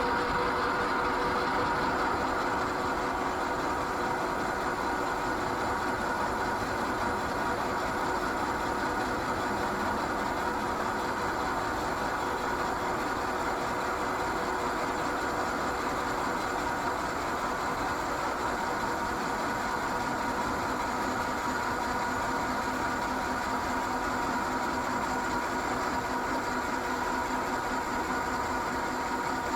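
Hydraulic vertical milling machine running: a steady mechanical hum from its motors and hydraulic power pack, with several steady tones held throughout.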